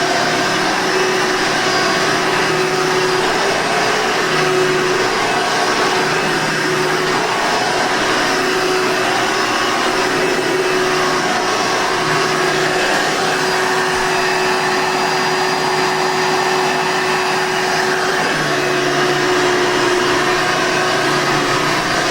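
A green Hoover Soft N Light vacuum cleaner with a 7-amp motor running steadily: a continuous motor whine with a low hum that fades in and out every few seconds.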